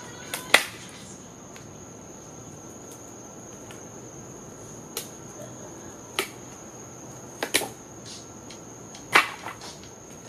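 Sharp, irregular wooden knocks and cracks from a wooden pallet being worked apart, about eight strikes, the loudest about half a second in and near the end. Crickets trill steadily in the background.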